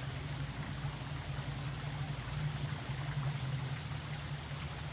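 Small creek running, a steady wash of flowing water with a low rumble underneath.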